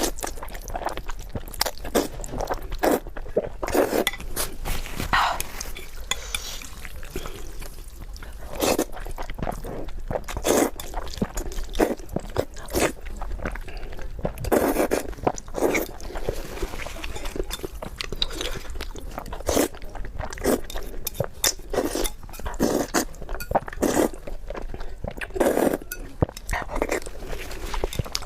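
Close-miked eating sounds: crunching, biting and wet chewing in an irregular stream of sharp mouth clicks and smacks.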